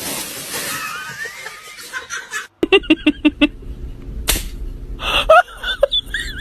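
A noisy hiss at first, then after a cut a person laughing in quick bursts, about five a second. A sharp slap about four seconds in, followed by more laughing and voices.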